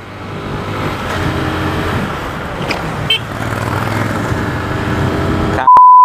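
Motorcycle engine running steadily with road and wind noise as the bike is ridden through traffic. A loud, steady bleep tone cuts in just before the end.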